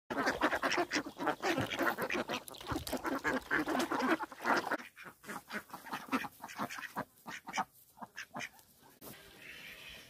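A flock of domestic ducks, Indian runner ducks among them, quacking: many calls overlap at first, thin to scattered single quacks after about five seconds, and stop about nine seconds in.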